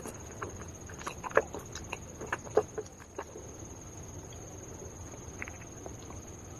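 Dry calabash clay (edible clay) being bitten and chewed up close: irregular sharp crunches and clicks, the two loudest about a second and a half and two and a half seconds in, thinning out after about three seconds.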